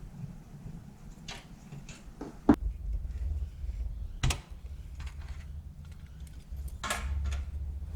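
Scattered clicks and knocks of hands handling computer parts and cables. The sharpest knock comes about two and a half seconds in, with a low rumble underneath from then on.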